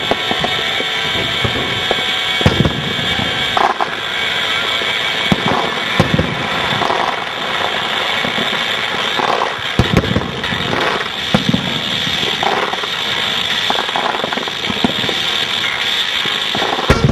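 Aerial fireworks display: shells bursting in sharp bangs every two to four seconds over a steady background noise.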